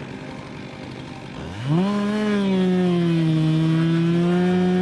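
Chainsaw revving up about a second and a half in, then held at high, steady revs.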